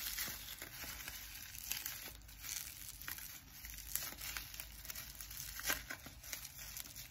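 Packaging being crinkled and torn open by hand to unwrap a small item: a continuous crackly rustle with a few sharper crackles.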